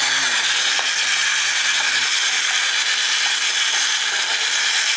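Clockwork wind-up motor of a toy magnetic fishing game running, a steady high-pitched buzz as the turntable carries the plastic sharks round.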